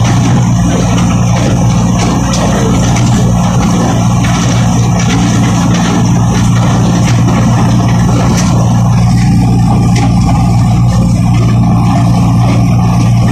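MTZ-80 tractor's four-cylinder diesel engine running steadily under load, driving a PTO stalk shredder that chops corn stalks with a constant rushing noise over the engine.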